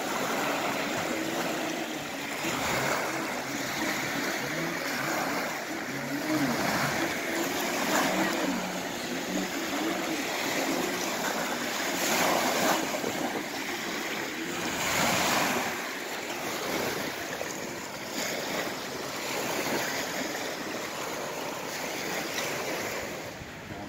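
Small lake waves breaking and washing up a pebbly shore, the wash swelling every few seconds, with some wind on the microphone.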